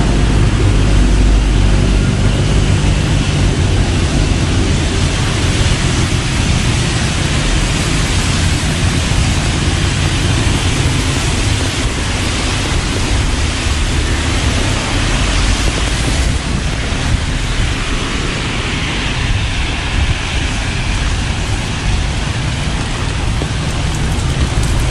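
Heavy rain falling steadily, a dense hiss with a low rumble underneath.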